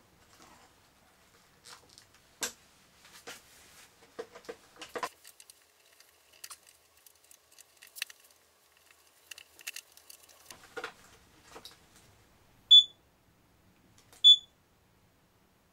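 Scattered light clicks and knocks of parts being handled, then two short, high beeps about a second and a half apart from the KingSong S20 electric unicycle as its power button is pressed with the batteries disconnected, to discharge the remaining power.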